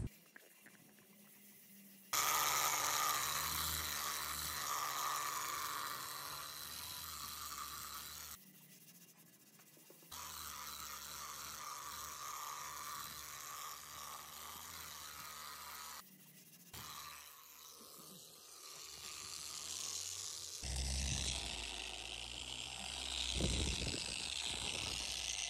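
Electric rotary polisher running with a polishing pad pressed on a painted motorcycle fuel tank: a steady motor whir with the hiss of the spinning pad. It starts about two seconds in, cuts out twice, and changes tone near the end.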